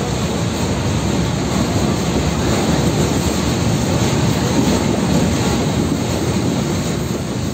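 Train hauled by an FS D.445 diesel-electric locomotive pulling out of a station at low speed: a loud, steady rumble of engine and rolling wheels, heard from one of the carriages.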